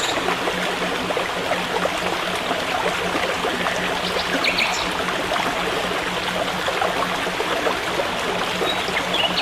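Forest stream running steadily, with a brief high chirp about halfway through.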